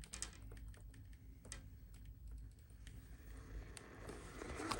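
Faint computer keyboard typing: scattered, irregular key clicks. A hiss builds up near the end.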